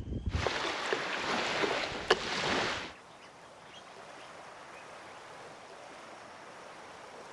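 Incoming tidal water rushing through a creek mouth: a steady hiss of moving water with a sharp click about two seconds in. About three seconds in it drops to a much fainter steady hiss.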